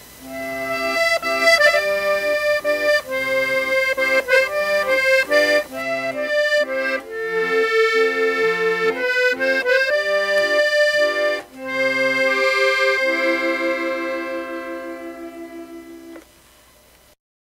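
Accordion playing a lively tune: a melody over an alternating bass-note-and-chord accompaniment. It ends on a long held chord that fades and cuts off about sixteen seconds in.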